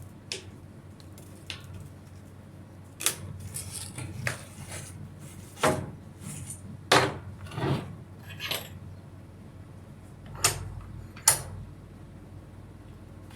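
Irregular metallic clinks and knocks of tools and metal parts being handled and set down on a workbench, about eight distinct hits with brief ringing.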